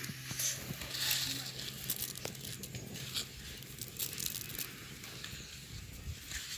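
Faint crackling and fizzing from a large pan of hot vermicelli payasam just taken off the fire, with a few small clicks. The vermicelli is softening in the leftover heat.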